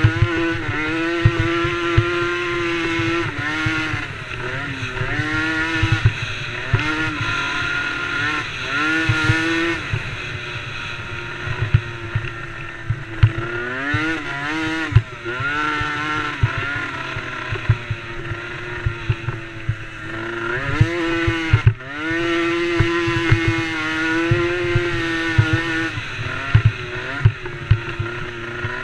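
DRR DRX90 youth 90cc race quad's engine revving hard through a race. Its pitch repeatedly holds steady at high revs, drops off and climbs again, with a sharp dip and re-rev a few times.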